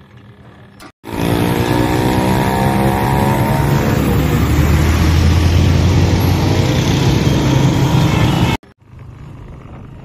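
Loud street traffic: a vehicle engine whose pitch falls over a few seconds, as when slowing down, then runs steadily under heavy road noise. It cuts off suddenly near the end.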